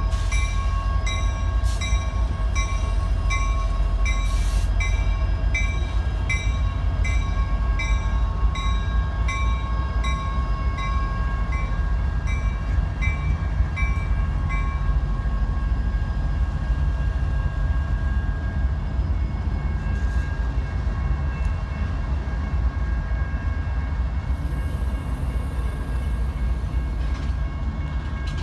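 Train passing with a steady low rumble. A regular metallic ringing, about two strikes a second, sounds over it through the first half and then stops.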